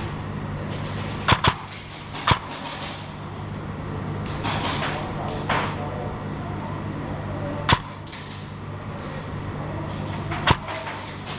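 Airsoft guns firing scattered single shots: about five sharp snaps, two close together about a second in, one near two seconds, then one each later on. A steady low hum runs under them.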